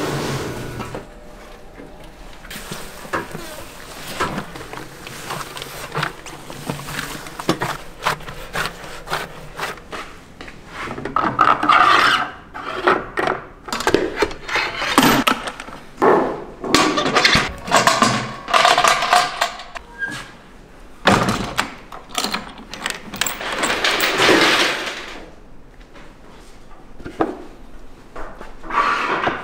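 Kitchen work clatter: repeated wooden knocks and clacks with rubbing and scraping, much of it from stacked wooden rice-cake steamer frames knocking together as they are handled. The knocks come in busy spells, louder in the second half.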